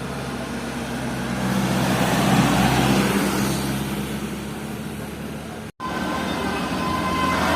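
A bus drives past, its engine hum growing louder about two seconds in and then fading. After an abrupt cut near the end, a steady high horn tone starts and grows stronger.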